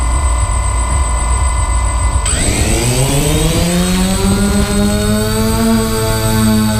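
DJI Phantom quadcopter's motors and propellers spinning at idle on the ground, then about two seconds in spooling up into a rising whine as it lifts off. The pitch climbs for a few seconds and then holds steady as the drone flies.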